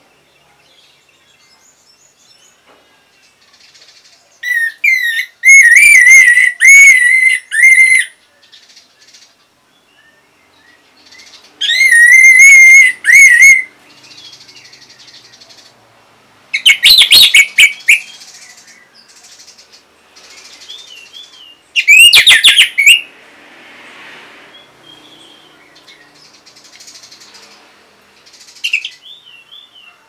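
Orange-headed thrush singing in four loud bursts of warbled, whistled phrases, each one to three seconds long, with softer chirps in the pauses and a short call near the end.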